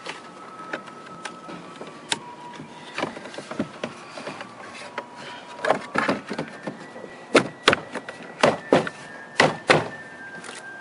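Hard plastic clicks and knocks as a VW Mk4 window switch bezel and its trim clips are handled in the door panel. Light scattered clicks at first, then a quick run of about nine loud sharp clicks in the second half.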